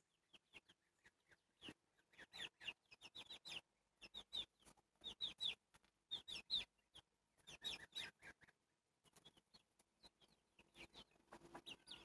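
Young chickens peeping: faint, short, high chirps that fall in pitch, coming in quick clusters.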